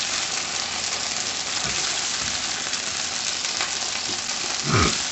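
Shrimp frying in olive oil in a pan, a steady sizzle.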